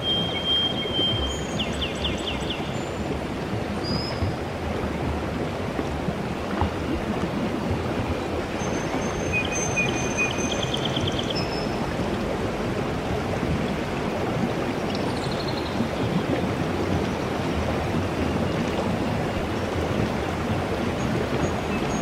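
Steady rush of running water, like a stream, with short high chirps and trills breaking in now and then, in the first few seconds and again around ten seconds in.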